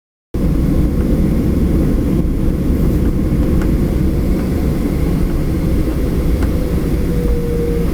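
Airplane cabin noise: the steady low rumble of the engines and airflow heard from inside the plane in flight.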